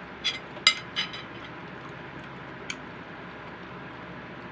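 Tableware clinking during a meal: three quick light clinks in the first second and one more a little before the middle, each with a short ring, over a steady low hiss.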